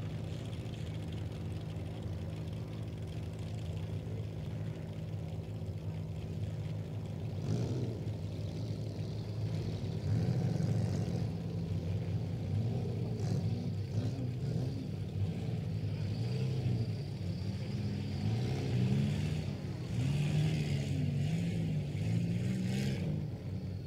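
Several front-wheel-drive race cars' engines running steadily together, then revving and accelerating from about seven seconds in, their pitch repeatedly rising and falling as the cars race around the figure-8 track.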